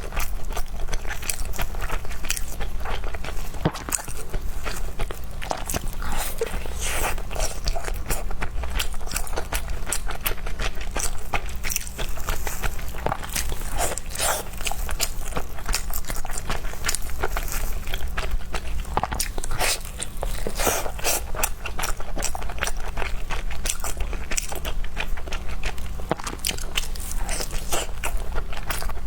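Close-miked eating: continual biting and chewing, full of small sticky clicks and crackles, over a steady low hum.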